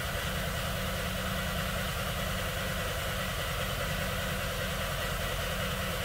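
Volkswagen Beetle 1.8 turbo engine cranking on the starter motor at about 250–300 rpm without starting, a steady even rhythm that stops near the end: the car's crank-no-start fault.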